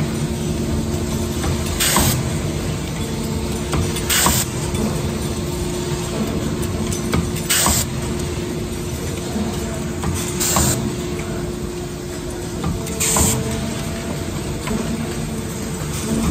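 Automatic engine-bearing shell forming machinery running: a steady mechanical hum, with a short sharp hiss about every two to three seconds as the machine cycles.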